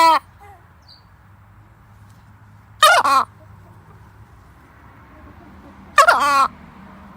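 A chicken making short, two-part pitched calls about every three seconds, each about half a second long, which the owner takes for sneezing and coughing.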